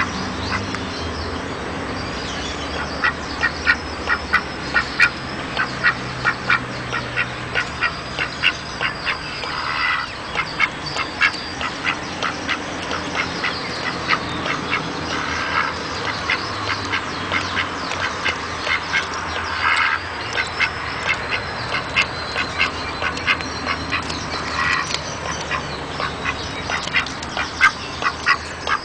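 Duck quacking in quick runs of short calls, about four a second, with a few longer drawn-out calls among them, over a steady low rumble.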